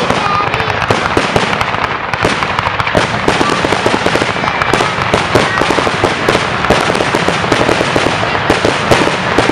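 Fireworks going off in a dense barrage: many rapid, overlapping bangs and crackles with no break.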